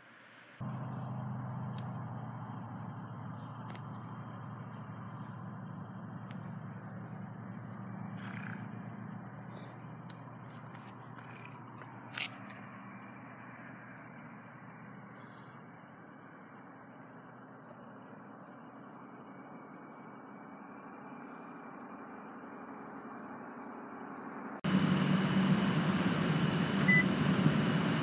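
Evening insect chorus of crickets trilling steadily, with a faster, higher pulsing joining about a third of the way in and a faint low hum beneath. Near the end the sound cuts abruptly to a louder, steady rumble and hum of outdoor urban ambience.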